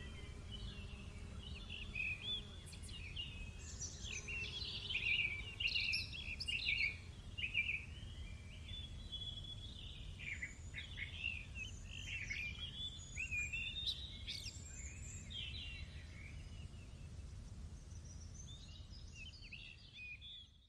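Small birds singing and calling, with quick overlapping chirps and warbles that are busiest in the middle and thin out near the end, over a low steady background rumble.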